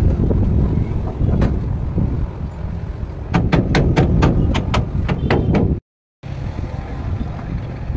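Steady low wind rumble on the microphone. Midway comes a run of about ten sharp metallic clicks, some four a second, as a U-bolt nut on the lorry's leaf-spring mounting is tightened. The sound cuts out for a moment about six seconds in.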